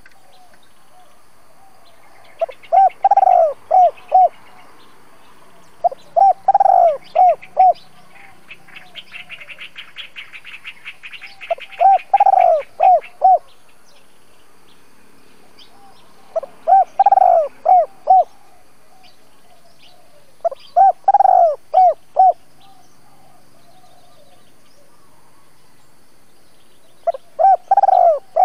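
Spotted dove singing its decoy cooing song: six phrases of several looping coo notes, each about a second and a half long and four to six seconds apart, the last cut off at the end. Between the second and third phrases, a fainter, higher run of fast ticks lasts about three seconds.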